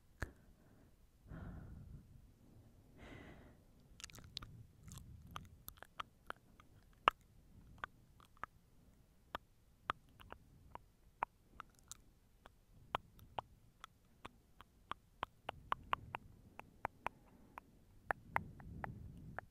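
Close-miked ASMR mouth sounds: a couple of soft breaths, then a long run of sharp, wet mouth clicks, a few per second, ending in another breath.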